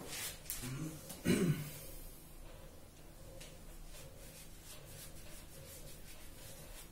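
A paintbrush scrubbing primer onto stretched cotton cloth: soft, faint, irregular brush strokes. About a second in there is a brief vocal sound from the painter, the loudest moment.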